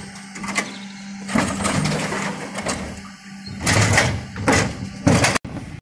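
Geesinknorba Combi-split bin lifter on a Geesinknorba GPM IV refuse truck raising and tipping a wheelie bin, over a steady hum from the truck. Rubbish clatters from the bin into the hopper, with a run of loud knocks about four seconds in, and the sound cuts off abruptly near the end.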